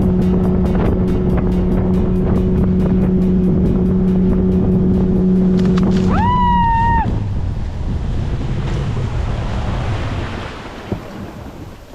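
Boat's outboard motor running steadily, then shut off about six and a half seconds in, with a short high-pitched call as it stops. After that, reeds brush along the hull as the boat coasts through them, fading toward the end.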